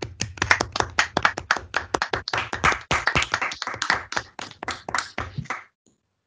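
Hand clapping at the end of a talk: quick, dense claps that stop abruptly about five and a half seconds in.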